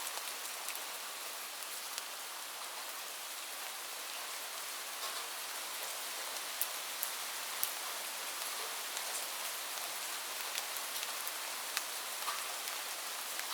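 Light rain falling steadily: an even hiss with scattered louder drop ticks.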